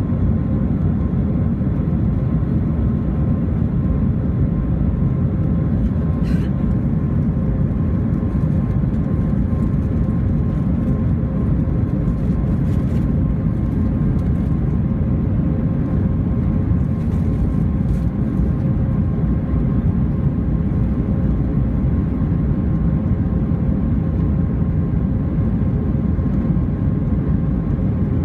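Airbus A320 cabin noise in the climb, heard from a window seat by the wing: a steady, deep rumble of the engines and the airflow, with a faint steady hum above it.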